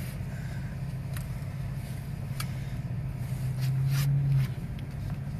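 Car engine running, heard from inside the cabin as a steady low hum that swells louder for about a second near the end, with a few light clicks.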